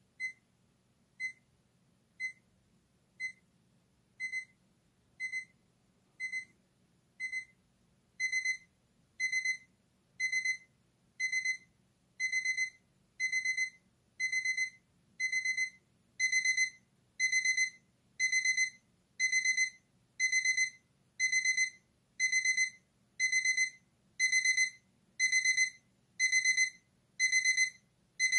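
Braun digital alarm clock's alarm going off: high-pitched electronic beeps about once a second, single short beeps at first. About eight seconds in each beep becomes a quick burst of several beeps, and the bursts grow louder.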